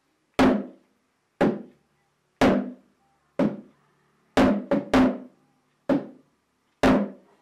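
Percussion music: single struck strokes at a steady beat of about one a second, each dying away quickly, with a quick double stroke a little past the middle.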